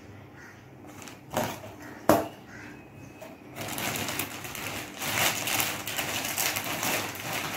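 Two sharp clicks, then from about halfway through a plastic snack packet crinkling and rustling steadily as it is handled.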